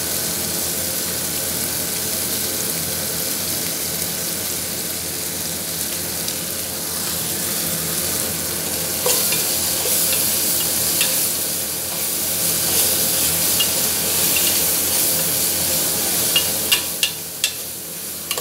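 Tomatoes and spices sizzling in a pan on a gas stove while a spoon stirs them, scraping and clinking against the pan. The clinks become sharper and more frequent near the end.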